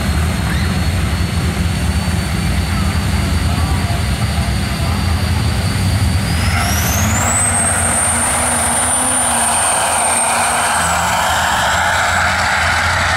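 Twin-turbo Chevy pickup's engine rumbling at the starting line with a steady high turbo whistle. About six seconds in it launches at full throttle: the whistle climbs sharply in pitch as the turbos spool, and the engine noise swells as the truck pulls away, the whistle dropping a little near the end.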